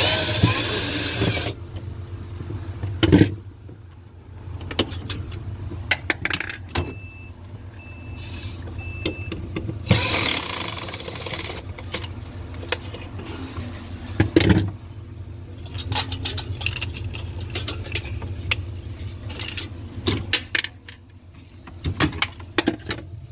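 LG French-door refrigerator running with a steady low hum while it is worked on: knocks and clatter of handling, two rushing noise bursts about a second and a half long, near the start and again about ten seconds in, and three short electronic beeps at one pitch about a third of the way through.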